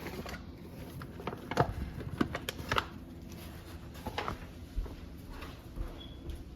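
Scattered light clicks and taps of kitchen utensils and a bowl while flour is measured out for pancake batter.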